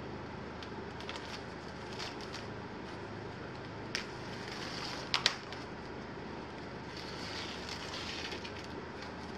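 Cardboard box being handled and opened: scraping and rustling of cardboard, with a sharp snap about four seconds in and a quick pair of louder snaps just after five seconds. A steady hum runs underneath.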